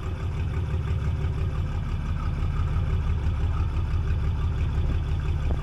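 Fishing boat's engine running steadily with an even, low, pulsing hum.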